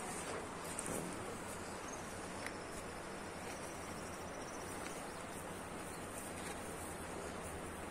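Faint, steady outdoor background noise on a riverbank, with a thin high-pitched insect trill for about two seconds in the middle.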